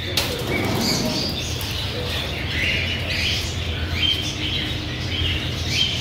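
Caged cockatiels chirping with short calls throughout, with wings fluttering in the cage. A steady low hum runs underneath.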